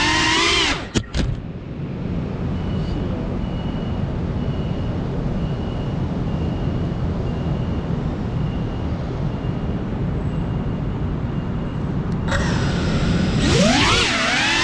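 FPV racing quadcopter's motors and propellers: a wavering whine that cuts out about a second in, then mostly a steady low rushing noise, with the whine coming back near the end, its pitch sweeping up and down with the throttle.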